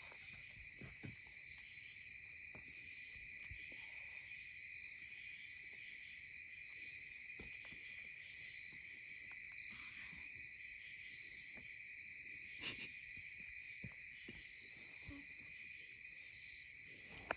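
Night insect chorus of crickets and katydids: a steady, unbroken high trilling, with a still higher buzz that swells and fades every two seconds or so. A few faint knocks and clicks sound over it, one a little sharper about two thirds of the way through.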